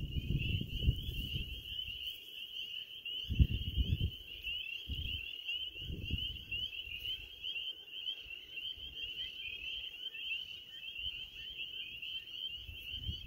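A dense chorus of small frogs calling from a wetland: many high, quickly repeated peeps and trills overlapping without a break. Gusts of wind buffet the microphone with low rumbles, strongest in the first few seconds.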